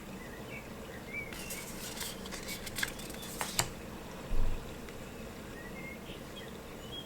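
Tarot cards being handled and flipped: rustling and a few sharp card clicks in the middle, then a single dull thump about four and a half seconds in.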